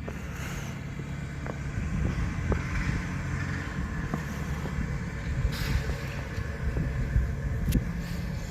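A truck engine running steadily, a low hum with a few faint clicks.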